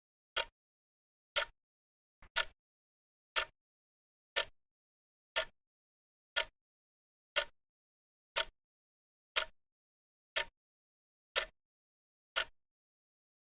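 Clock ticking sound of a countdown timer: sharp, dry ticks, one each second, evenly spaced, with silence between.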